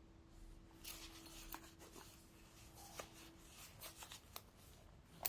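Faint scratching and scattered small clicks of a zipper being worked along its teeth with a clip-on replacement slider just locked in place, running a little tight.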